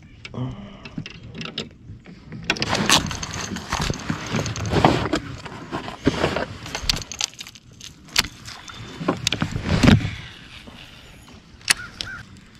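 Fishing tackle and kayak handling noises: irregular clicks and knocks from a baitcasting rod and reel being cast and reeled, with a stretch of louder rustling from a few seconds in until near the end.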